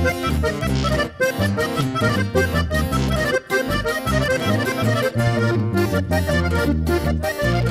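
Instrumental intro of a norteño-sierreño corrido: a button accordion plays the melody over steady tuba bass notes and a strummed acoustic guitar, in a brisk, even rhythm.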